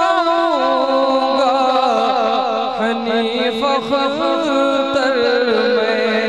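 A man singing a naat solo into a microphone with no instruments: one long melismatic phrase, the voice held and winding through ornamented turns, stepping down in pitch about half a second in.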